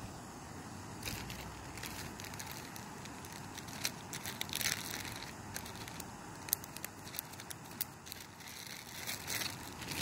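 Mini canister stove burning steadily under a stainless steel pot. Irregular crackles and sharp ticks begin about a second in and bunch up around the middle and near the end.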